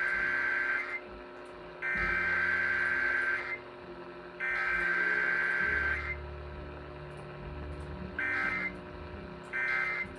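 Emergency Alert System SAME data tones on a weekly test: three long, raspy, buzzing digital header bursts about a second apart, then two short bursts near the end that mark the end of the message.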